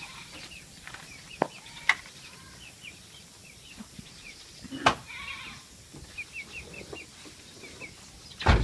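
Birds chirping in series of short, quick notes, with a few sharp knocks and a louder thump near the end.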